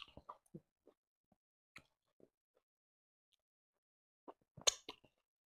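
Close-miked wet eating sounds of someone eating fufu with ogbono soup by hand: scattered soft lip smacks and chewing clicks, with a louder cluster of smacks about four and a half seconds in.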